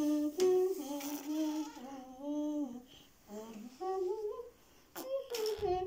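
A young child humming a wordless tune in held notes that step up and down, with a short break about halfway.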